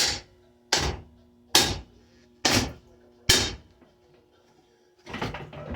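Five hard blows of a bat striking a Hampton Bay Quick Connect ceiling fan, a little under a second apart, each a sharp crack that dies away quickly. Near the end comes a longer rattling clatter, over a faint steady hum.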